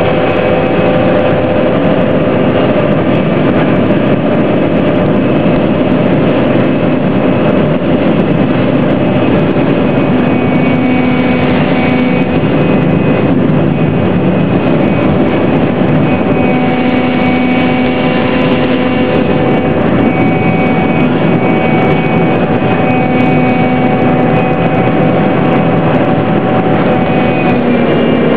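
An IJ ferry's engine running steadily under way: a loud, even drone with a few steady hum tones, heard from inside the passenger cabin.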